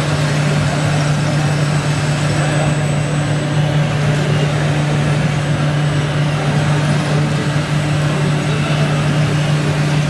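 Steady low drone of an RC model truck's simulated engine sound, running at an even pitch without revving.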